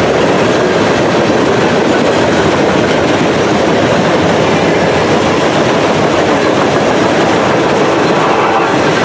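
Loaded coal hopper cars of a freight train rolling past close by: a loud, steady rumble of steel wheels on rail.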